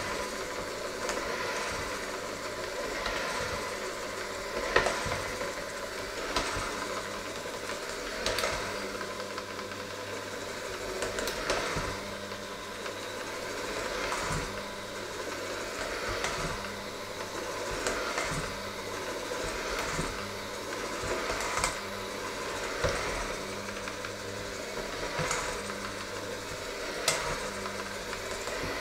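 Electric hand mixer running steadily, its beaters knocking against a stainless steel bowl every second or two as they work a thick mixture.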